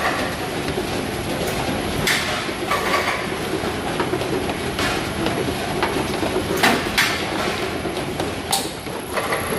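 Fruit grading conveyor line running: belts and gear motors make a steady mechanical rattle, with a few sharp clacks scattered through it.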